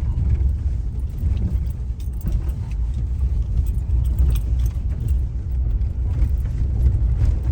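Truck driving along the road, heard from inside the cab: a steady low rumble of engine and tyres with light scattered rattles.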